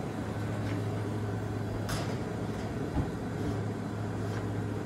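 Steady low hum of commercial kitchen ventilation, with a light click about two seconds in and a short knock about a second later as a convection oven's door is handled and opened.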